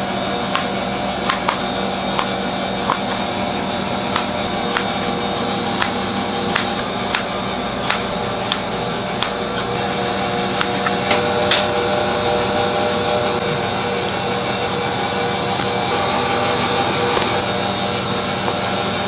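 A knife tapping down through strawberries onto a plastic cutting board in short sharp clicks, roughly one every half second to a second, thinning out about twelve seconds in, over a steady mechanical hum of kitchen equipment.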